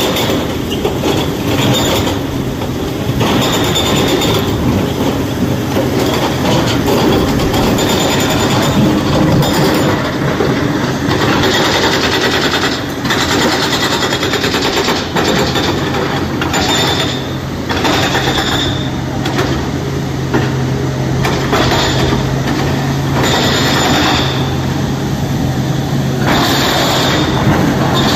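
Heavy diesel quarry machinery, a tipper truck and a tracked excavator, running continuously, with a steady low engine note settling in about halfway through. High metallic squeals and clanking come and go throughout.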